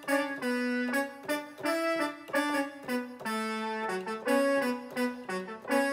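Roland XP-10 synthesizer played on a brass patch: a quick melody of separate, trumpet-like notes, a few a second.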